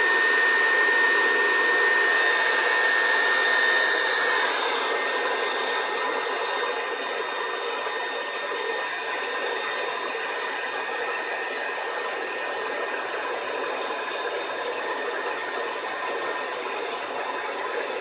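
Revlon hand-held hair dryer running steadily, its fan noise carrying a high, even whine while it blows into a plastic water bottle. The sound drops a little in level about five seconds in.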